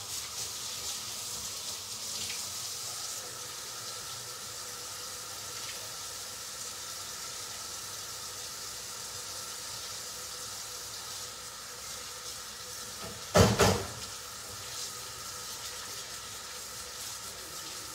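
Kitchen tap running steadily into the sink, with a short double clatter of dishes or utensils about thirteen seconds in.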